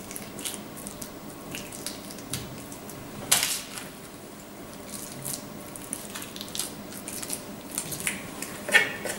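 Soft handling sounds of minced meat being pressed by hand into a horn-shaped pepper, with scattered faint clicks and one sharper knock about three seconds in.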